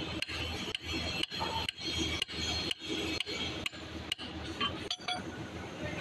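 Metal rasping from a socket wrench on a long steel bar being worked back and forth on a bolt of a hydraulic breaker's cylinder block, in regular strokes about twice a second, with a few light metal clinks near the end.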